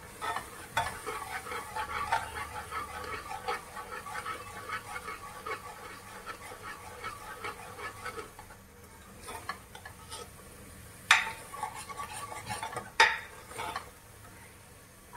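A spoon stirring and scraping food in a cooking pan, with light sizzling, for about eight seconds. Then two sharp knocks about two seconds apart, the loudest sounds.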